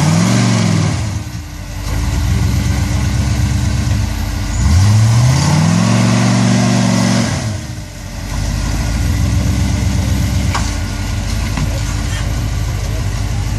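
Off-road vehicle's engine revving up twice, each a short rise in pitch, as the driver bumps the throttle to climb a rock ledge, then running steadily at a lower speed. A single sharp click comes about ten and a half seconds in.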